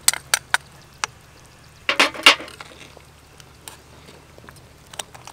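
Utensils knocking against an aluminium cooking pot: a few sharp clicks, a louder clatter about two seconds in, then a couple of faint taps.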